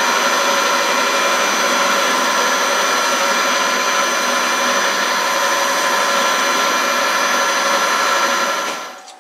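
Harrison M250 metal lathe running at about 160 RPM while a tool turns a steel bar. The sound is a steady machine hum with a whine of several steady tones. It falls away quickly near the end.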